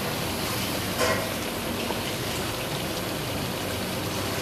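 Mutton and tomato masala sizzling in a steel karahi over full heat as oil is poured in, a steady hiss. This is the start of the high-heat bhunai (searing) stage.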